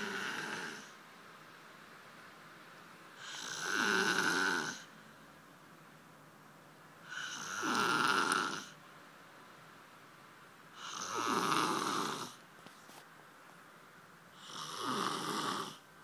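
A sleeping man snoring loudly: long snores about every four seconds, the tail of one at the start and four more after it, with quiet breaths between.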